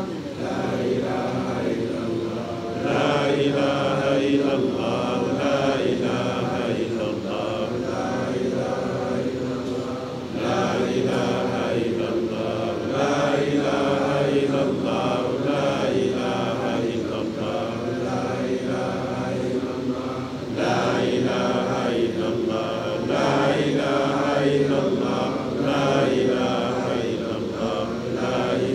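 A congregation chanting an Arabic devotional litany in unison, the voices moving together in long melodic phrases that repeat again and again.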